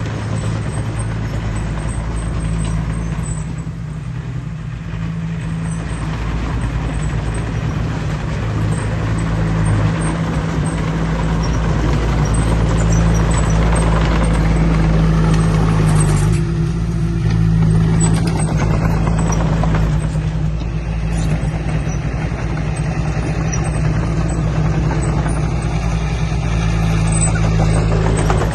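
Diesel engine of heavy earthmoving equipment running steadily, a low, even drone.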